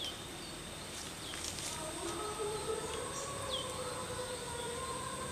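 A distant wavering, siren-like tone that slowly rises and falls, coming in about a second in, over a steady high-pitched insect drone and a few short bird chirps.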